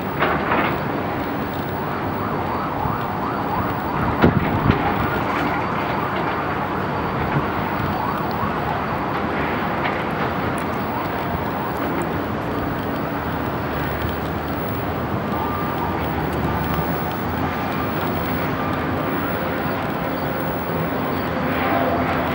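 Steady outdoor city rush of distant traffic, with two low thumps on the microphone about four seconds in.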